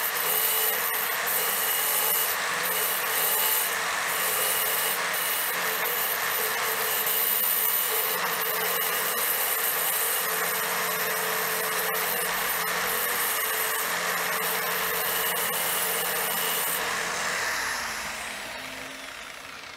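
Angle grinder with a diamond disc, held in a cutting stand, running and grinding a tight curve into a clinker brick slip: a steady grinding noise over the motor's whine. The sound fades out near the end.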